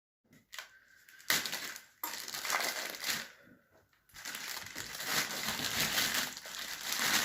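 Plastic packaging crinkling and rustling as it is pulled off a loudspeaker, in irregular bursts starting about a second in, with a short lull about three and a half seconds in.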